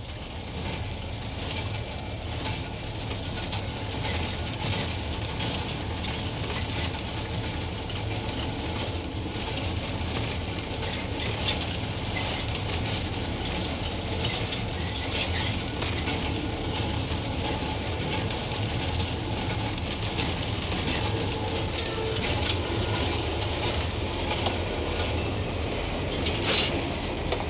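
Passenger train running at speed, heard inside the carriage: a steady low rumble with light rattling and the clicking of wheels over the rail joints.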